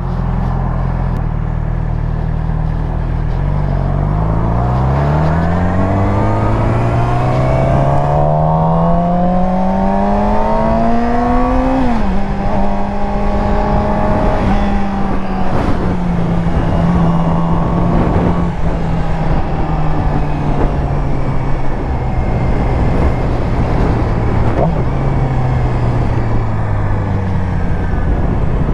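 Yamaha R6 sport bike's inline-four engine under way: it revs up steadily for several seconds, the pitch dips a little about twelve seconds in, then it holds and slowly falls as the throttle eases. A constant rush of wind noise runs underneath.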